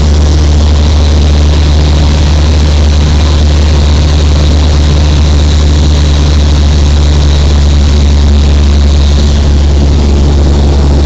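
Loud, steady drone of a high-wing light aircraft's engine and propeller in flight, heard inside the cabin: a deep, unchanging hum under a constant rush of noise.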